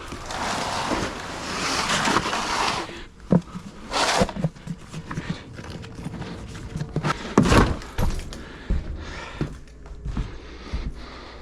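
Handling noise: rustling for the first three seconds, then scattered knocks and thuds, with louder ones about four seconds in and again past the middle.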